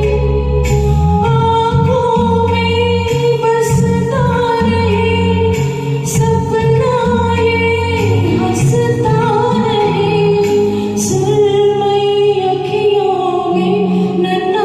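A woman singing a slow Hindi film song over a backing track, with bass notes, long held tones and light percussion.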